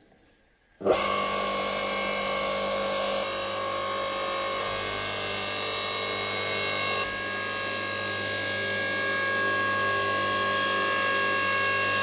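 Electric single-phase 230 V log splitter switched on about a second in, its motor and hydraulic pump then running with a steady hum. The sound shifts slightly about seven seconds in, as the control lever is worked.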